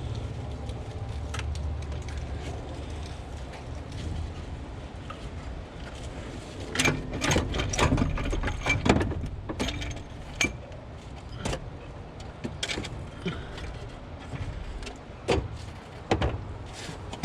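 Metallic clinks, knocks and rattles as the cylinder head is worked loose and lifted off a 1991 Mazda Miata's 1.6-litre four-cylinder engine, densest in a burst about halfway through, with single knocks after it. A steady low rumble sits underneath.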